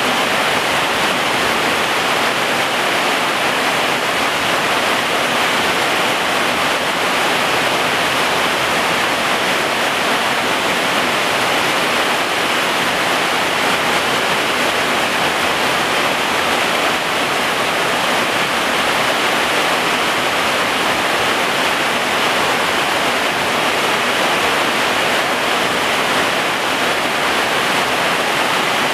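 Heavy rain pouring steadily, a dense even hiss that does not let up.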